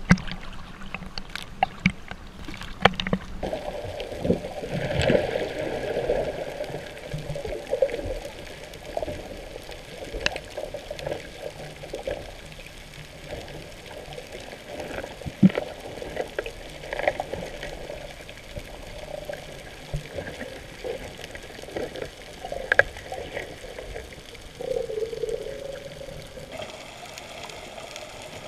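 Seawater splashing and sloshing at the surface, changing after about three seconds to a muffled underwater sound of bubbling and water movement, with scattered irregular clicks and knocks.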